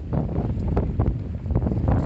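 Strong wind buffeting the microphone, a low rumble broken by irregular gusty bursts, typical of a stormy sea crossing in an open boat.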